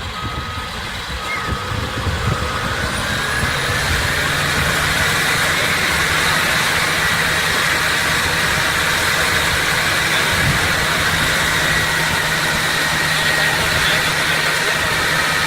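Heavy diesel earthmoving machine running: a reversing alarm beeps for the first couple of seconds, then the engine speeds up and runs loud and steady with a high whine over a low hum.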